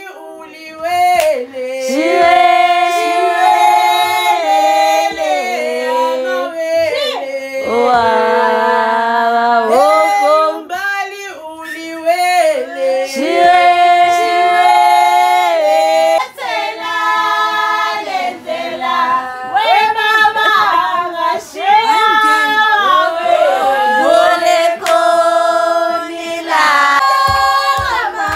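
Women's voices singing together in a melodic song, with long held notes that slide up and down and brief pauses between phrases.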